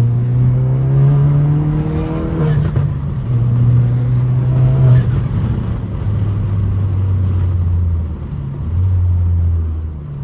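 Tuned Mk7.5 Golf GTI's turbocharged 2.0-litre four-cylinder, run with a muffler delete and catless downpipe, pulling hard. It rises in pitch twice, each pull cut off sharply at a gear change about two and a half and five seconds in. After that it settles into a lower, steadier drone that dips briefly twice near the end.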